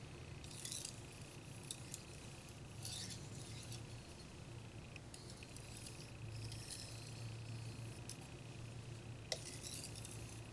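Carbon-steel (Shirogami white steel No. 2) petty knife edge being stroked with light pressure across a hard 5000-grit Shapton Pro water stone: faint, gritty scraping strokes that come and go every second or two.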